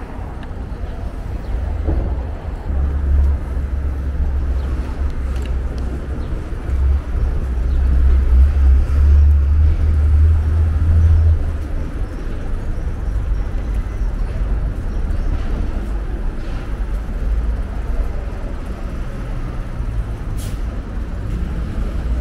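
City street traffic noise with a heavy low rumble that swells through the middle and eases off about eleven seconds in, and a short sharp sound near the end.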